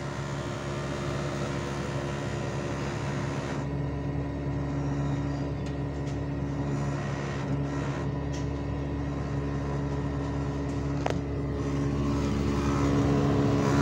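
Outdoor unit of a Panasonic 1.5-ton inverter air conditioner running, with a steady multi-tone hum from the compressor and fan. The noise is excessive: the technician puts it down to compressor vibration and a dirt-clogged outdoor condenser. A single click comes about 11 seconds in, and the hum grows a little louder near the end.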